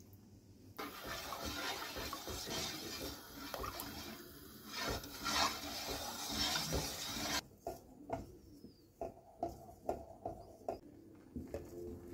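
Wooden spoon stirring a thin milk-pudding mixture in a metal pot, a dense sloshing and scraping. About seven seconds in it turns abruptly quieter, leaving scattered knocks of the spoon against the pot.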